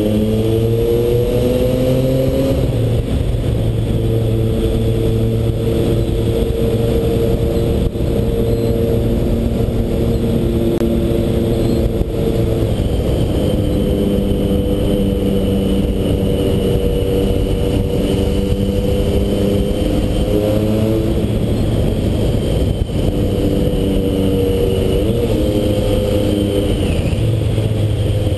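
Motorcycle engine under way, rising in pitch over the first couple of seconds, then holding a steady cruise with shifts in pitch about 12 and 21 seconds in. Heavy low wind rumble on the helmet-mounted microphone runs under it.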